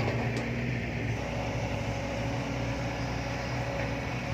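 Heavy diesel engine running steadily, a low even drone.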